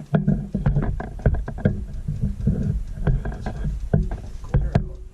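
Handling noise: irregular knocks, bumps and rubbing close to the microphone over a low rumble.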